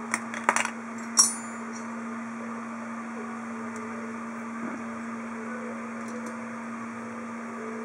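A few light clicks, then a sharp metallic click with a short high ring about a second in, as small parts are handled on a workbench. After that the rest is a steady low electrical hum, with only faint handling of a power transistor on an aluminium heatsink.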